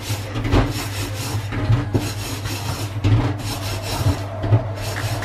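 Scouring pad scrubbing a wet gas hob burner cap in a stainless steel sink: a rasping rub in repeated back-and-forth strokes, about two a second.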